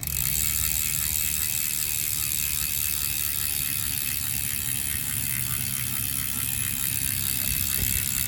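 Road bike's rear freehub ratcheting rapidly and steadily as the wheel spins freely without pedalling.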